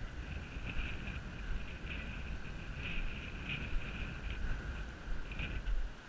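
Wind buffeting the microphone, with a steady high-pitched hiss in the background that swells briefly several times.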